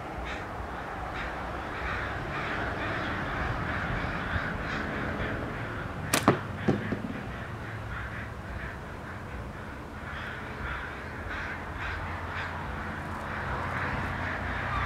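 One slingshot shot: the flat latex bands snap sharply on release about six seconds in, followed about half a second later by a smaller crack as the ball strikes the target. Birds call in the background throughout.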